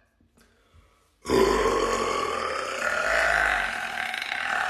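A woman's long, loud burp that starts abruptly about a second in and is held for about four seconds, its pitch shifting gently: "so powerful."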